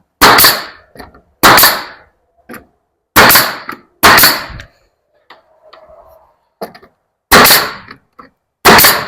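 Bostitch pneumatic coil siding nailer firing six times, driving 1.25-inch nails into wood siding boards: sharp single shots, each with a short fading tail, spaced irregularly a second or two apart.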